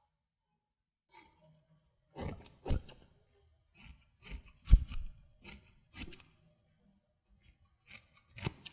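Scissors snipping hair close to the microphone, in irregular clusters of crisp snips separated by short pauses.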